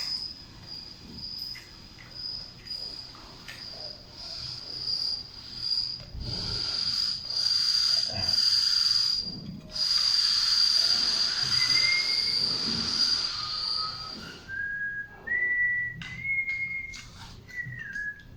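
A high, steady tone that pulses on and off, with a louder hiss through the middle, then a person whistling a short run of notes near the end.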